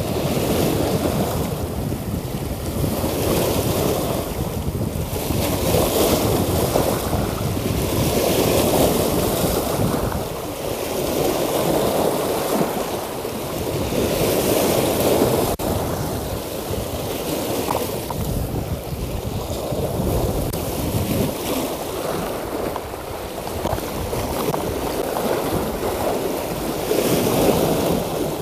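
Sea waves washing against rocks, swelling and ebbing every two to three seconds, with wind rumbling on the microphone.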